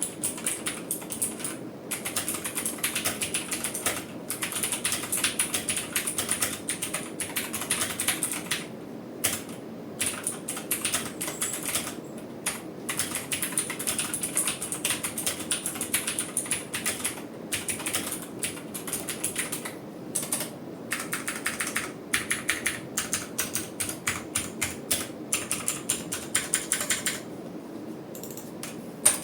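Typing on a Redragon Kumara mechanical keyboard fitted with clicky blue switches: a rapid, continuous run of keystroke clicks, broken by a few short pauses.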